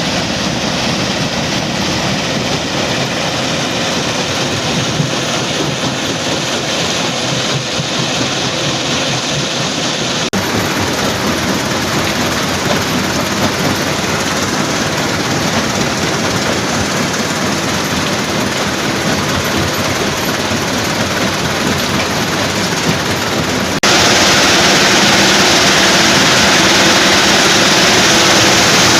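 Stone crushing plant machinery running: a loud, steady mechanical din. It changes character abruptly about ten seconds in, and again near the end, where it gets louder.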